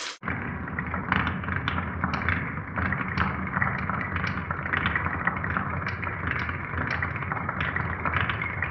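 Glass marbles rolling along a wooden marble run: a continuous rumble with irregular sharp clicks as they knock against the track pieces.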